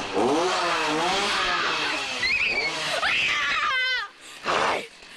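A chainsaw engine revving up and down, with high-pitched screaming over it midway through.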